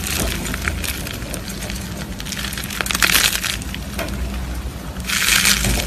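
Slime being squeezed and pressed by hand, giving a dense, continuous crackling and popping, louder for a moment about three seconds in and again near the end.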